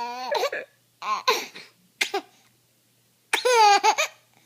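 A 9-month-old baby laughing: a high laugh trails off at the start, then come a few short, hiccup-like giggles and one more burst of laughter about three and a half seconds in.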